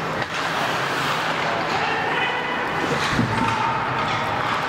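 Ice hockey rink ambience during a youth game: the arena's steady noise with distant, echoing voices, a few sharp knocks and a low thump about three seconds in.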